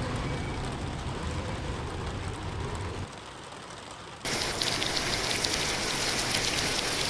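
A low rumbling noise that drops away about three seconds in, then heavy rain starting suddenly a second later as a dense, steady crackling hiss.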